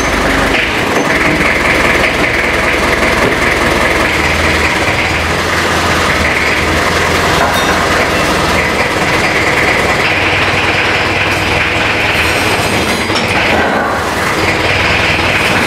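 Manitou rough-terrain forklift's diesel engine running steadily and loud as the forklift takes up the tow strap to drag a car.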